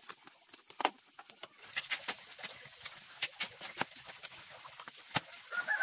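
A knife chopping and scraping the husk off a fresh bamboo shoot: quick, irregular strokes, several a second, after a single knock about a second in. A chicken clucks near the end.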